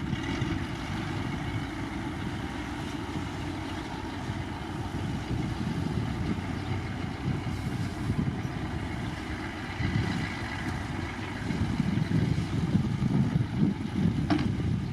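Heavy diesel earthmoving machinery running with a steady low engine rumble. The rumble grows louder and more uneven in the last few seconds, and a brief sharp sound comes near the end.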